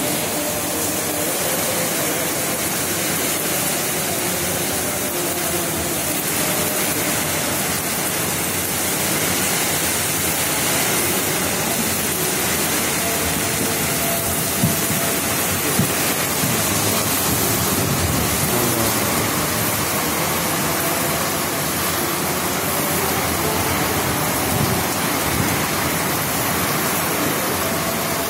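Heavy tropical downpour: a steady, dense hiss of rain pouring onto roofs and pavement. Two brief knocks stand out about halfway through.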